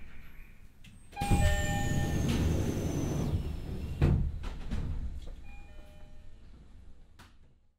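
Door chime of a stopped E129 series electric train ringing as the passenger doors open: a sudden rush of door noise with chime tones about a second in, and a thump about four seconds in. The chime sounds again more faintly before the sound fades out at the end.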